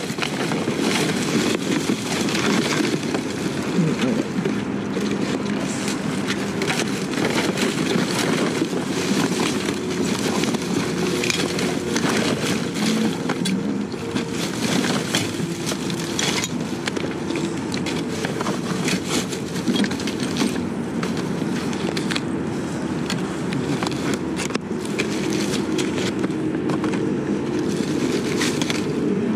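Rustling and clattering of discarded store goods being dug through and handled in a dumpster, with many small knocks throughout.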